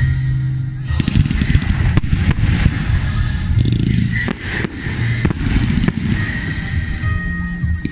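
Aerial fireworks display: shells bursting in a string of irregularly spaced sharp bangs, with crackling between them.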